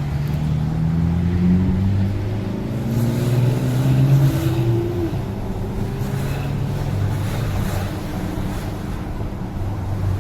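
Car engine accelerating, its pitch rising twice with a drop in between, as from a gear change, then running steadier.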